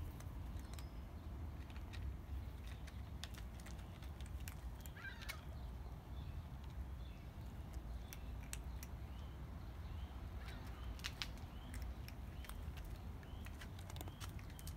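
Two cats eating from a dish: scattered small clicks of chewing and licking over a low, steady outdoor rumble, with a few faint bird chirps in the background.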